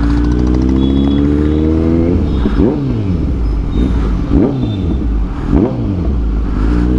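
Kawasaki Z900 inline-four on an aftermarket Racefit exhaust. It pulls in gear with the revs climbing steadily for about two seconds, then three quick throttle blips, each note shooting up and dropping straight back, before it settles into a steady run again near the end.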